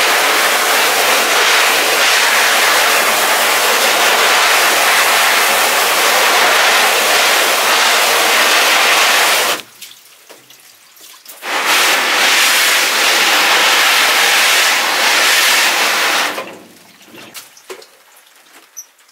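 Garden hose spray nozzle jetting water onto a screenprinting screen's mesh, washing the unexposed photo emulsion out of the stencil. The spray runs steadily, stops for about two seconds around the middle, runs again for about five seconds and cuts off.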